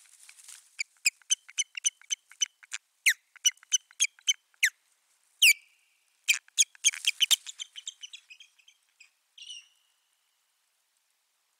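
Osprey calling a long series of sharp, downward-slurred whistles, about three a second, with one loud note in the middle and a faster run after it before the calls trail off, typical of ospreys in a territorial dispute at the nest.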